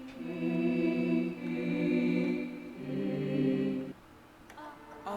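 Arturia Augmented Voices software instrument playing a choir vocal preset: sustained chords of wordless voices that change about every second and a half and stop about four seconds in.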